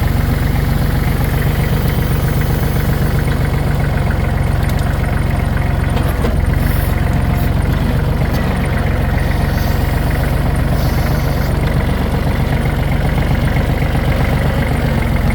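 Tractor engine running steadily, heard from the operator's seat while driving.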